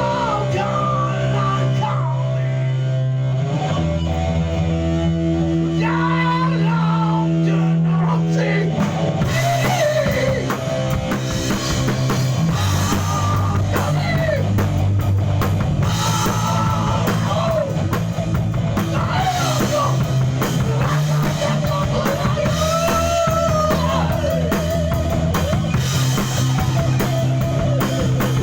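A rock band playing live: sustained guitar and bass chords for the first several seconds, then the drum kit with cymbals comes in about nine seconds in under a bending lead melody.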